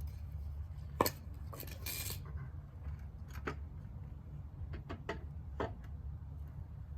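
A straight edge being set on top of a wooden stair stringer: a sharp knock about a second in, a brief scrape, then a few lighter clicks of handling, over a steady low rumble.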